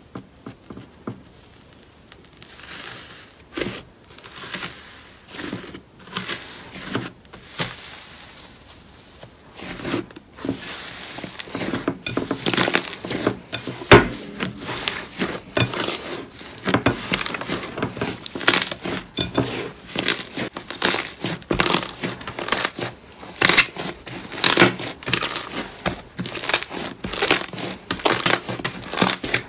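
Hands working slime in a glass bowl: first a silver glitter slime pressed flat with a few soft sticky pops, then, about a third of the way in, a thick white fluffy slime squeezed and kneaded with a dense run of crackling, crunching pops, one loud squelch near the middle.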